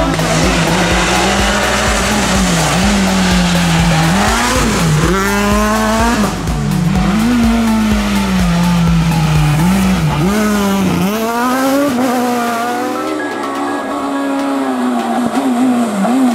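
Renault Clio Super 1600 rally car's engine at full throttle, its pitch climbing and then dropping sharply again and again as it shifts and lifts. Background music with a steady beat runs under it and stops about two-thirds of the way through.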